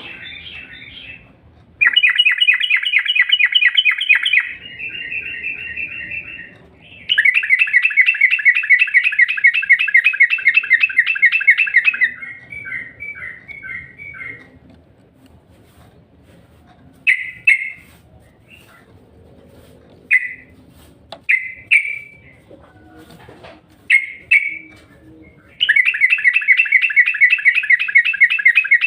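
Trucukan (yellow-vented bulbul) singing in long, loud runs of rapid, evenly repeated chattering notes, the long fast song prized as 'ngropel'. Several shorter single phrases fall between the runs, and a new run starts near the end.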